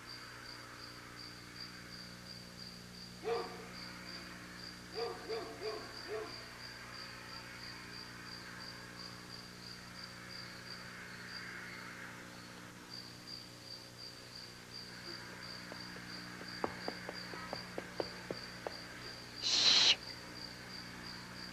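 Night ambience of crickets chirping steadily, about three or four chirps a second, with a few owl hoots in the first quarter. A run of light clicks is followed by a brief, loud burst of noise near the end.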